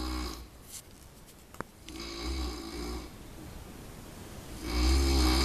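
A person snoring, a snore about two seconds in and a louder one near the end, with quieter breathing between.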